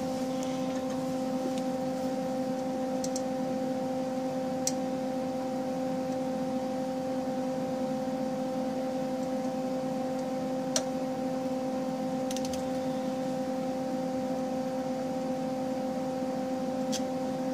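A steady low hum throughout, with a few isolated sharp metallic clicks from a ratchet wrench being worked on a nut welded onto a broken exhaust manifold bolt.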